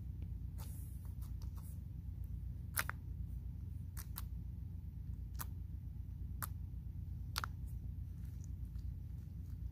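Hands tapping and handling things on a hard floor close to the microphone: about seven scattered sharp clicks and taps, the loudest a little under three seconds in, over a steady low hum.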